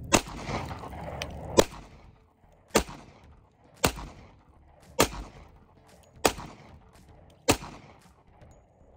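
Seven pistol shots from a 5-inch 1911 in .45 ACP, fired steadily a little over a second apart, each with a short echo trailing off.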